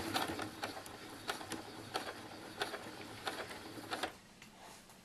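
Electric domestic sewing machine stitching slowly in short runs, its needle mechanism clicking at uneven intervals as the fabric is guided around a corner; it falls quiet about four seconds in.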